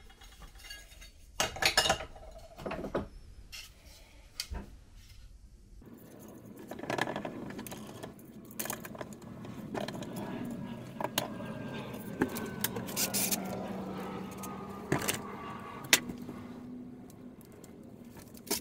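Metal clinks and knocks as a metal switch panel is handled and clamped in a bench vise. From about six seconds in, a steady low rumble with a faint slowly falling whine runs under the knocks.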